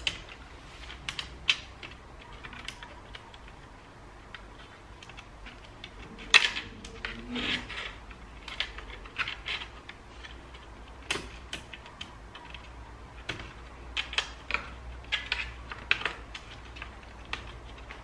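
Irregular small clicks and taps of fingers working inside an opened ThinkPad T430's plastic chassis, pressing cables into their routing and handling small parts; the sharpest click comes about six seconds in.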